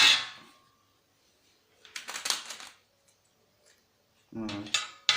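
Metal disc-drive casing knocked once, with a brief thin ringing tone, then a short clatter as the metal parts are handled. The ring is what makes him say it sounds like steel rather than aluminium.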